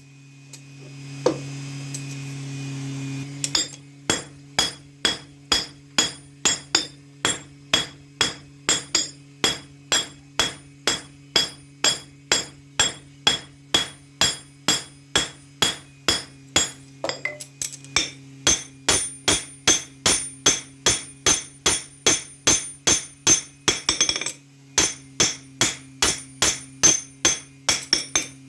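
Hammer blows ringing on steel over an anvil, struck evenly at about two or three a second, over a steady low hum. The blows start a few seconds in, stop briefly near the end, then resume.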